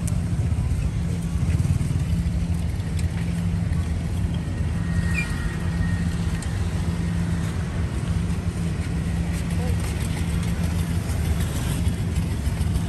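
A steady low engine hum, even and unchanging, with faint voices behind it.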